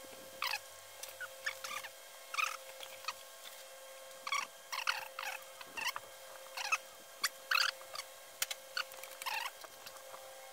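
Hands fitting bolts into a billet aluminium intake manifold plenum on a 7.3 Powerstroke diesel: short, irregular clicks, scrapes and small squeaks of metal parts being handled and started in their holes, over a steady background hum.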